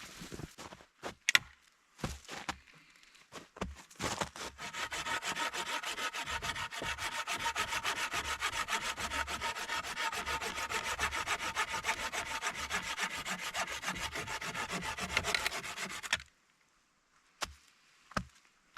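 Hand saw cutting through a green sapling about two inches thick. A few scattered knocks come first, then fast, steady back-and-forth strokes start about four seconds in and stop suddenly near the end.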